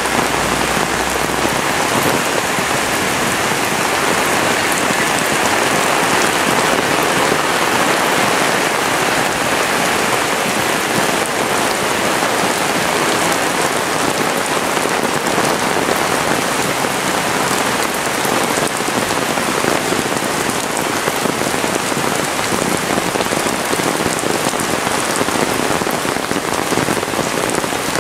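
Heavy rain pouring down steadily, a dense, even hiss of drops that doesn't let up.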